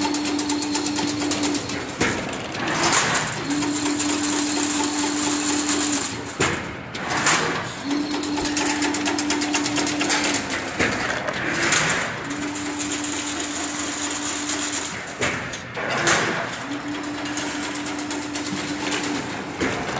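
Chain link fence weaving machine running through its cycle. A steady motor hum lasts about two and a half seconds, then the metal mechanism clatters. This repeats about every four and a half seconds, roughly four times.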